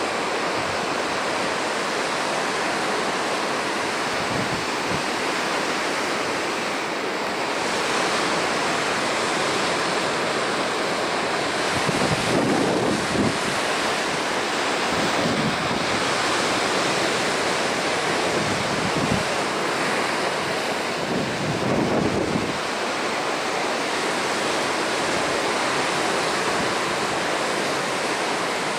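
Ocean surf breaking and washing in, a steady rush of white water with a few louder surges, the strongest about twelve and twenty-one seconds in.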